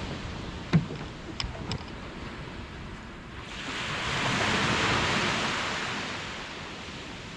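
Ocean surf on a beach: a wave swells up and breaks about halfway through, then washes out. A few sharp knocks come in the first two seconds.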